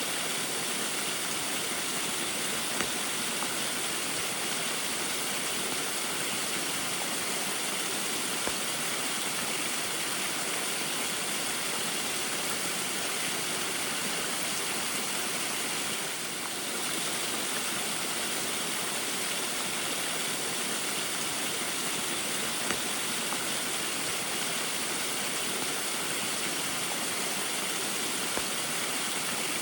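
Small waterfall in the rain: a steady, even rush of falling and splashing water, dipping briefly about halfway through.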